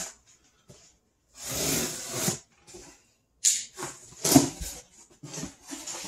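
Cardboard shipping box being cut open: a knife slitting the packing tape, with a long tearing scrape about a second and a half in, then a run of short scrapes and knocks as the cardboard flaps are worked open.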